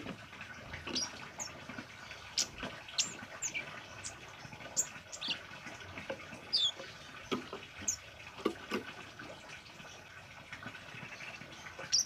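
Scarlet-headed flowerpecker (kemade) giving about a dozen short, sharp, high chirps at irregular intervals, some dropping quickly in pitch.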